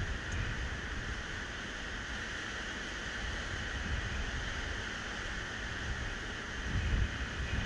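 Wind buffeting the microphone in gusts, hardest near the end, over a steady wash of sea surf breaking on a sandy shore.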